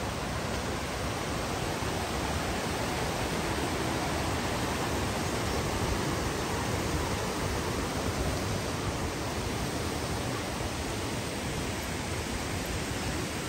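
Mountain stream rushing over small stepped stone weirs, a steady rush of water that grows a little louder around the middle.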